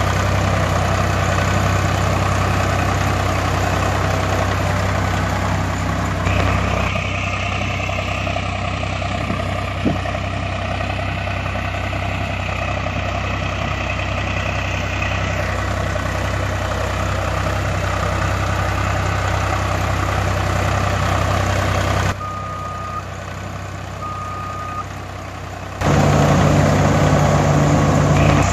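Heavy vehicle engines running steadily, in several segments that cut abruptly into one another. Partway through, two short beeps sound during a quieter stretch, then a louder, lower steady engine hum takes over near the end.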